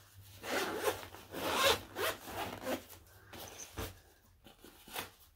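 Front-panel expansion zipper of a Krydex tactical expandable backpack being unzipped in several short pulls with pauses between them, opening out the panel's extra room.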